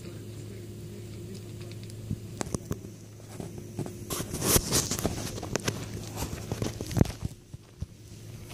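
Footsteps and scuffing on a dirt and gravel road close to the microphone, irregular knocks thickest a little past the middle, over a steady low hum.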